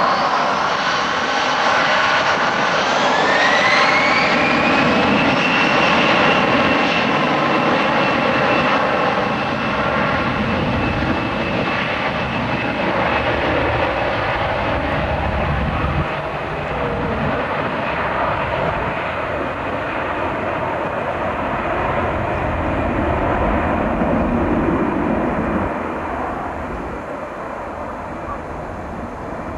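Airbus A321-211's twin CFM56 turbofans spooling up, a rising whine over about three seconds, then held at high thrust with a steady whine and roar as the airliner rolls down the runway for takeoff. The sound fades somewhat near the end as it moves away.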